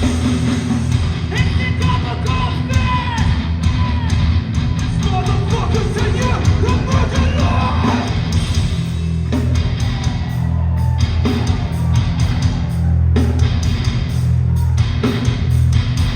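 Live hardcore band playing loud, with a heavy bass-and-drums low end and distorted guitars, and shouted vocals over the first half. In the second half the vocals drop out and fast, steady drum hits drive the band on.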